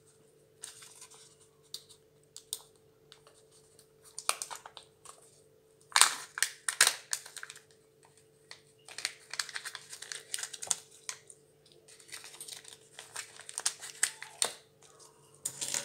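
Plastic Kinder Joy toy capsule being pried open and handled, with clicks of the plastic shell and the crinkling of the paper leaflet and wrapping inside, in irregular bursts; the loudest clicks come about six seconds in.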